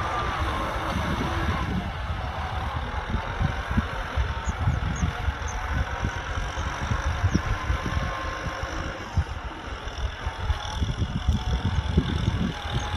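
Kubota M6040SU tractor's diesel engine running steadily while plowing a muddy field.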